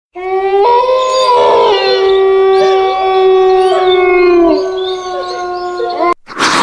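Horror sound effect of several sustained howling tones layered over each other, with a few pitches bending up and down. The howling cuts off sharply just after six seconds and is followed by a loud noisy rush near the end.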